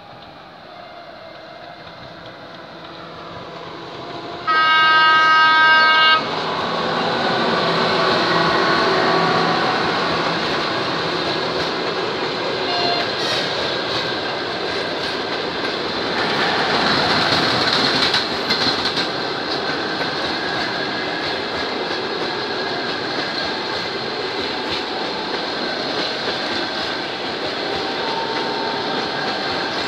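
A passenger train hauled by an ЭП2К electric locomotive approaches and grows louder. About four and a half seconds in, the locomotive sounds one loud horn blast of about a second and a half. Then the coaches roll past with a steady rumble and clatter of wheels on the rails.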